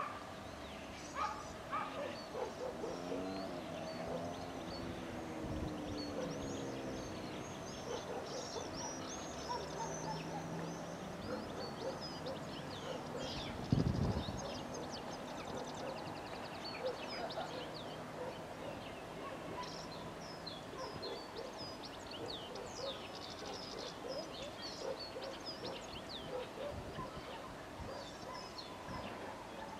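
Small birds chirping and twittering throughout, over a low steady hum. A wavering, gliding tone runs for a few seconds near the start, and there is one heavy thump about fourteen seconds in.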